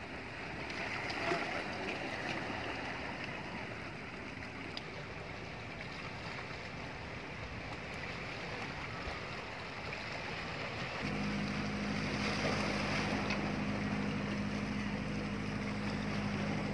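Sea water washing over the shore rocks, with wind. About eleven seconds in, the steady low hum of a boat engine starts suddenly and continues.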